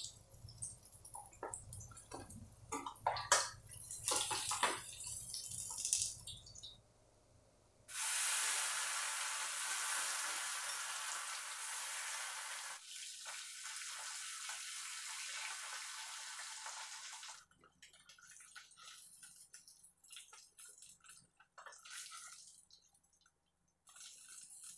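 Rohu fish frying in hot oil in a kadhai. For the first several seconds a steel spatula clinks and scrapes against the pan among light crackles. About eight seconds in, a steady sizzle starts suddenly as a fresh batch of fish fries. It dies away about nine seconds later to faint scattered crackles.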